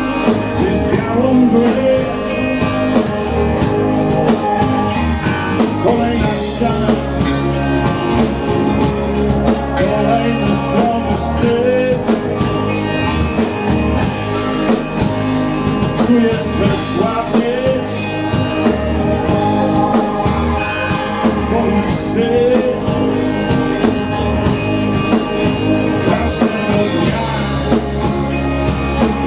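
Live rock band playing: electric guitar, electric bass and a drum kit keeping a steady beat, with a lead line that bends up and down in pitch.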